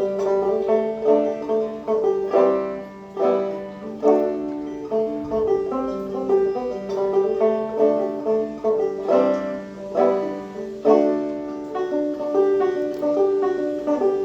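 Solo plucked acoustic string instrument picking an instrumental passage of a song, notes struck in a steady rhythm and left ringing, with no singing.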